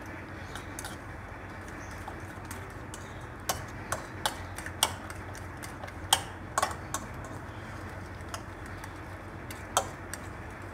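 A metal utensil beating a raw egg mixture in a bowl, clicking against the bowl's side in an irregular run of taps; the sharpest click falls about six seconds in.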